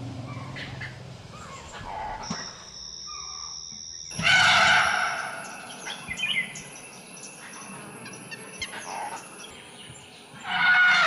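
Forest ambience with birds chirping and a steady, very high insect tone. It is broken about four seconds in by a short loud call and, near the end, by a louder wavering call.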